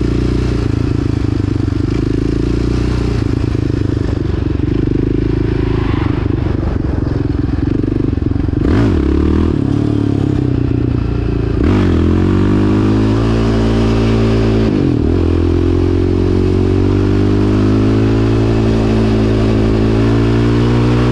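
Yamaha Raptor 700 quad's single-cylinder four-stroke engine pulling under throttle while being ridden, on a clutch the rider suspects of slipping. The engine note breaks off twice partway through, then climbs steadily in pitch.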